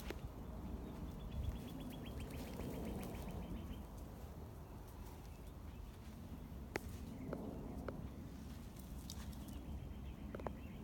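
Faint outdoor ambience with a low rumble, a few light clicks, and a rapid high trill heard twice, once for about three seconds and once near the end.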